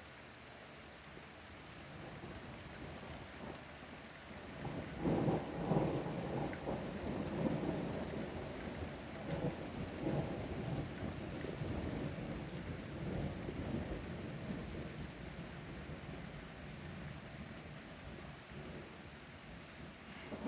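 Steady rain with a roll of thunder that builds about four seconds in, peaks a couple of seconds later and rumbles on in several swells before slowly dying away.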